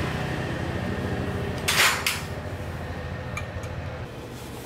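Metal parts and tools clinking over a low steady hum that stops about four seconds in, with a short hiss about two seconds in.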